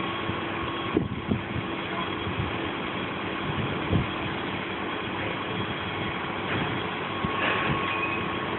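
Stainless-steel lift doors sliding open and shut over a steady mechanical hum from the lift, with a short knock about a second in and another about four seconds in.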